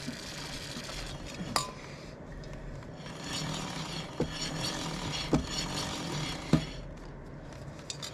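Aerosol multi-purpose penetrant lube hissing in spells onto a motorcycle drive chain as the rear wheel is turned by hand, with the chain running over the rear sprocket. A few sharp clicks come through, at about 1.5 s and then three more between 4 and 7 s.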